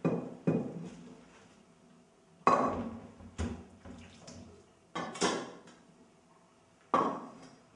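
Stainless steel pasta pot and colander knocking against each other and the counter while cooked spaghetti is drained: about seven sharp metallic clanks with short ringing tails.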